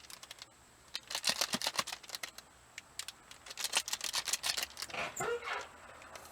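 Plastic packaging crinkling and crackling in irregular clusters as a packet of Tannerite powder is worked open.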